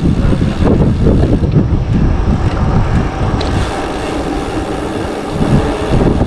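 Steady wind rumble on the microphone of a rider's camera while cycling through the city, with no speech.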